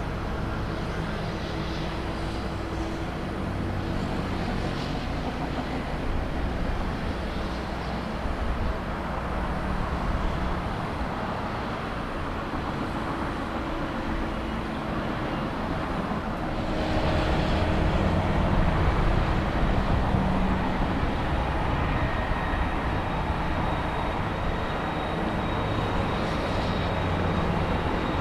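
Airliner engines running steadily as an aircraft moves on or near the runway, growing louder a little over halfway through.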